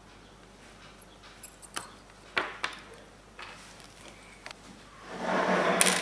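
Small clicks and taps from handling a key-fob circuit board and soldering iron, a few scattered through the middle, then a louder rustling rush near the end as the board is set down on a paper towel.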